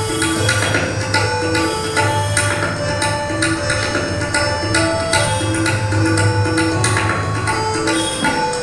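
Tabla solo: quick, dense strokes on the right-hand dayan and the deep left-hand bayan. Under it a short melody of held notes repeats over and over, the lehra that keeps the cycle for a tabla solo.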